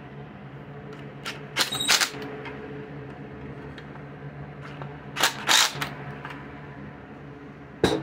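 Yellow cordless driver running in two short bursts, about one and a half and five seconds in, driving home the last bolt on the hedge trimmer's engine. A sharp click comes near the end.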